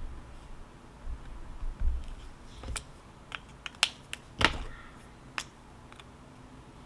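An irregular run of about eight short, sharp clicks and taps, the loudest a little past the middle, over a faint low rumble.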